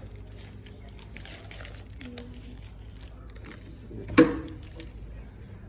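Trading cards and their wrappers being handled, with light rustling and small clicks, and one sharp, loud knock about four seconds in.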